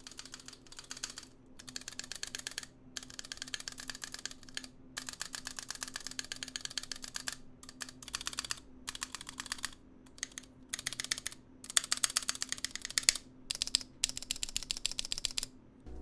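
A keyboard's spacebar and then its Return key pressed over and over in quick bursts, many strokes a second with short pauses between bursts. Each keystroke rattles because the keys sit on unlubed Cherry clip-in stabilizers over brown switches.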